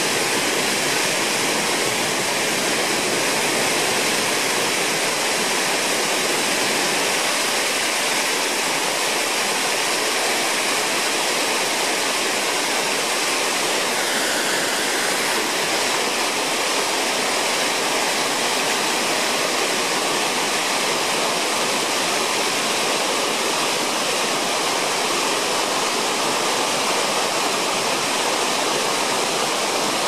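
Water pouring over a mill-dam spillway and crashing into whitewater at its foot: a steady rushing.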